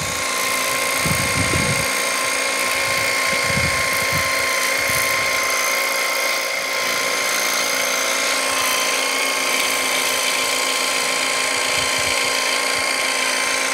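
Fixnow 500E cordless pressure washer, powered by a 24-volt battery, running with a steady high-pitched electric pump whine while its lance sprays water.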